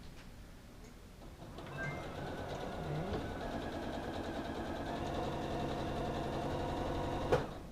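Sewing machine stitching through blanket fabric: it starts about two seconds in, runs at a steady speed, and stops with a click near the end.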